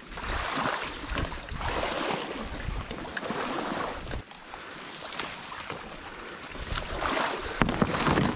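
Footsteps in waders sloshing through shallow marsh water, with cattail stalks rustling and brushing against the body in a surge at each step. The steps get louder near the end, with one sharp snap.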